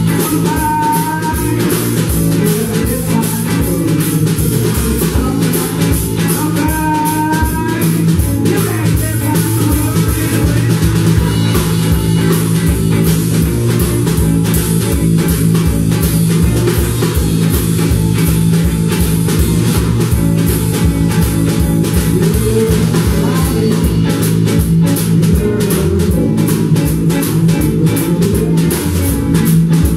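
Blues-rock band playing live, an instrumental passage without vocals: guitars over bass and a steady drum-kit beat.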